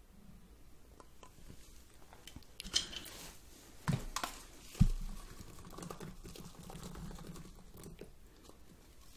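Tabletop handling sounds: a glass skillet lid is set down with a few clatters and one heavy thump near the middle. Soft rustling and light patter follow as chopped green onions are shaken out of a plastic cup onto melted cheese.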